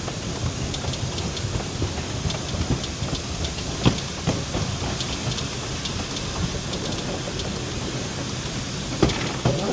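Narrow-gauge train running along the track, with a steady rumble and wheels clattering over the rail joints. A sharper knock comes about four seconds in and another near the end.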